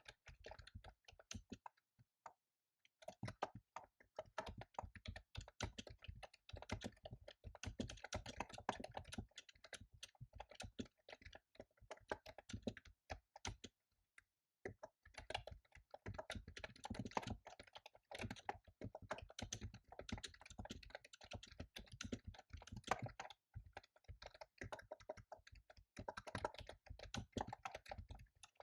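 Typing on a computer keyboard: quick runs of keystrokes, broken by short pauses about two seconds in, around the middle, and again near the end.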